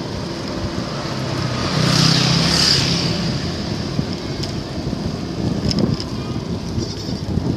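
Road traffic: a motor vehicle passes close by about two seconds in, its engine sound swelling and then fading over steady road and wind noise. A few light clicks come later.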